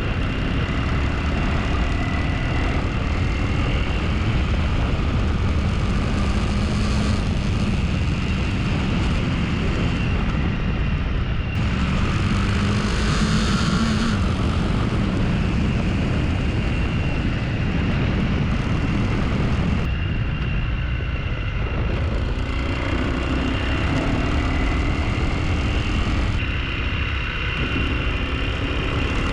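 Honda CRF300L single-cylinder dual-sport motorcycle being ridden, its engine running with a pitch that rises and falls with the throttle, under heavy wind rumble.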